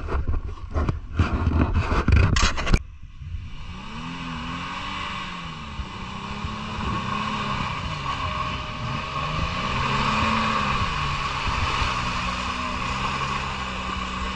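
An off-road vehicle's engine revving up and down again and again over a steady hiss. About three seconds in it takes over abruptly from loud, irregular rumbling and thumps.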